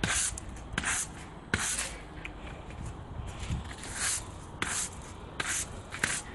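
Broom sweeping concrete paving slabs: about eight short brushing strokes, a little more than one a second, each a scratchy hiss.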